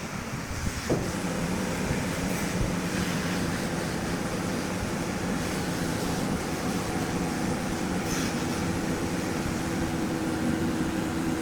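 A machine running with a steady hum. It starts with a sharp click about a second in and holds an even pitch.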